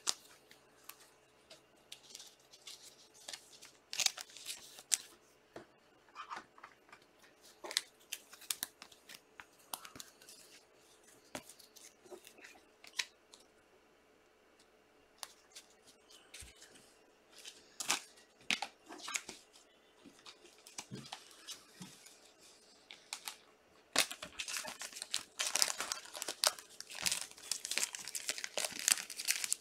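Trading cards being handled, with scattered crinkles and clicks from foil card-pack wrappers. In the last few seconds a foil card pack is torn open, with a dense run of crinkling.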